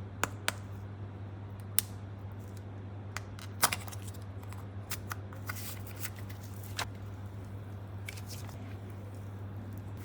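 Scattered light clicks and taps from small objects being handled, over a steady low hum.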